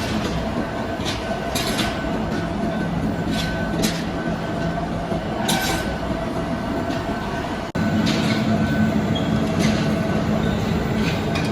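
Machinery running with a steady hum and a few sharp metallic clicks. The sound changes abruptly about eight seconds in and then runs on a little louder.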